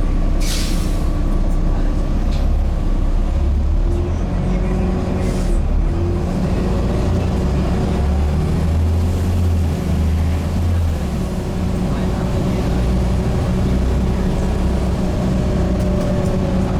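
Volvo B7TL double-decker bus's D7C straight-six diesel running steadily under way, heard from on board. A short hiss comes about half a second in.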